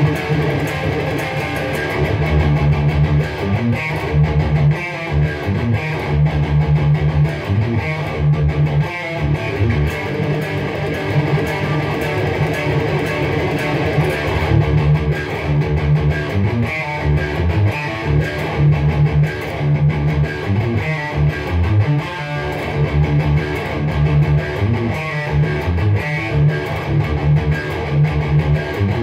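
Distorted electric guitar playing low, chugging groove metal riffs.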